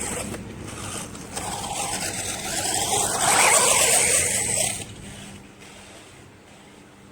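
Electric RC monster truck on a 3S battery driving on dirt toward and past the camera: a high motor whine over the rush of tyres, growing louder to a peak, then dropping suddenly about five seconds in.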